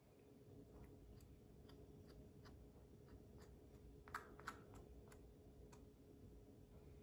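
Faint clicks and light scraping as a wooden stick works leftover screen-printing ink off a wooden squeegee, a small tick every half second or so, with two sharper clicks about four seconds in. A faint steady hum lies underneath.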